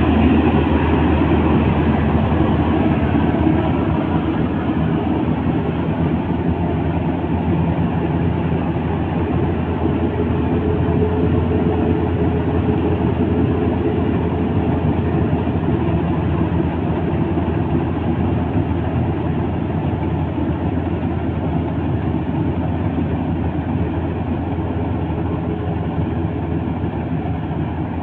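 Maxxi Bimo 102 rice combine harvester running steadily, its engine holding an even pitch.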